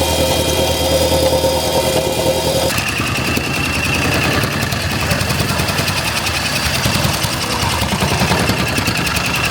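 Milwaukee MX Fuel battery-powered compactor running, a steady electric machine sound. About three seconds in it changes to a dense, rapid pulsing with a higher tone.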